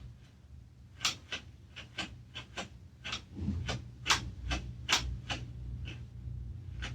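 Irregular clicks and light scrapes of small parts being handled and worked, about a dozen sharp ticks in several seconds, over a low steady hum.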